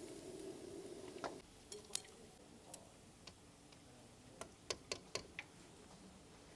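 Faint, irregular light clicks and taps of tableware being handled, about ten in all, scattered unevenly. A low steady hum underneath stops about a second in.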